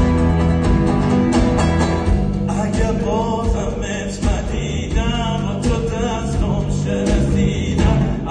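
Live band playing: bass guitar, electric guitars and drums. About two and a half seconds in, a voice comes in singing long notes with vibrato over the band.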